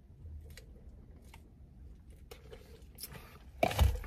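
A few faint small clicks over a low, steady cabin hum, then a short, louder thump near the end as a paper fountain-drink cup is set down.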